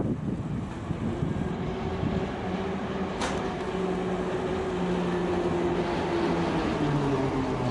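Principe–Granarolo rack railway tramcar running: a steady rumble with an electric-motor whine that slowly drops in pitch, and a single sharp click about three seconds in.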